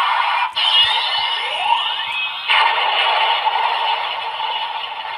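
Ultraman Decker Dual Sword toy's speaker playing an electronic sound effect triggered by a scanned card. It is a loud, hissy blast in surges, with rising sweeps near the start, a fresh surge a couple of seconds in, and a fade near the end.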